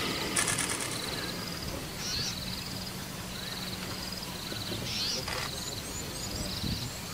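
Birds calling in the bush: short, rasping, high-pitched calls repeated about once a second over steady outdoor background noise, with a low steady hum in the first half.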